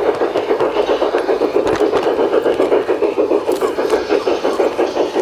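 LGB garden-scale model train running along its track, heard from a camera riding on it: a steady mechanical running noise that pulses evenly at about five beats a second.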